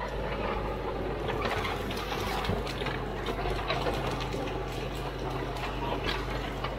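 Caterpillar D4 7U bulldozer's four-cylinder diesel engine running steadily while the machine pushes into gorse, with frequent sharp cracks of brush breaking.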